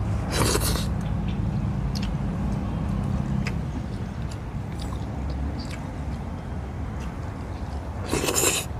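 Close-up mouth sounds of a man eating boiled tuna head with his fingers: a short slurp about half a second in and another near the end, with small wet clicks of chewing between, over a steady low rumble.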